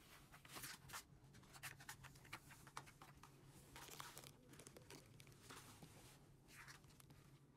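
Faint, irregular scratching and rustling: a dog in labour digging and shifting with her claws on the cardboard and cloths of a whelping box, over a low steady hum.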